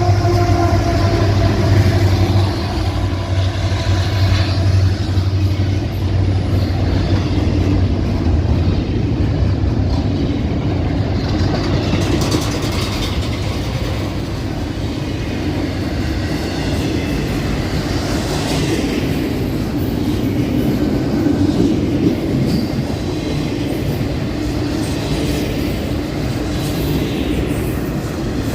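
A CSX diesel freight locomotive passing with a low steady engine rumble for the first several seconds, then the intermodal train's cars rolling by: steady wheel-on-rail noise with clicking over the rail joints.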